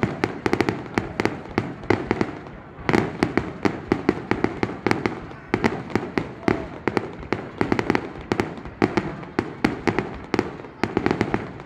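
Fireworks going off: a dense run of sharp bangs and crackles, several a second, with a brief lull about two seconds in.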